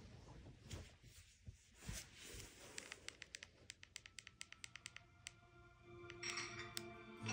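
Rapid clicking of a TV remote control's buttons, about five or six presses a second for a couple of seconds, as the TV is stepped through its channels. Faint TV sound with held notes comes in near the end.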